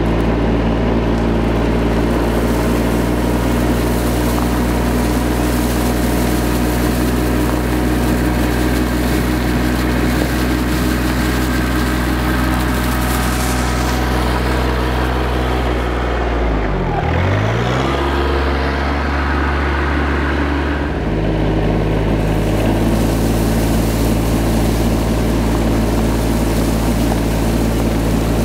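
RK 24 subcompact tractor's diesel engine running steadily under load. About two-thirds of the way through the engine speed drops sharply and picks back up, runs at a different pitch for a few seconds, then returns to its earlier steady note.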